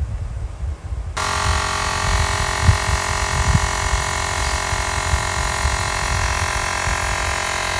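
Xiaomi Mijia portable electric air pump (Mi Air Pump 2) switching on about a second in, then running steadily with an even, many-toned hum as it inflates a car tyre toward its preset pressure of 34.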